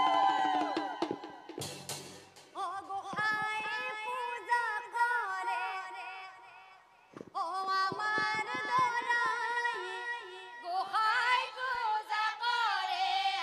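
A woman singing an Assamese nagara naam devotional song solo into a microphone, in long wavering, ornamented lines. A few drum strikes come about two seconds in, and again after a short lull about seven seconds in.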